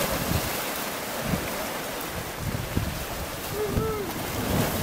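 Steady wind and sea surf, with gusts buffeting the microphone in low thumps.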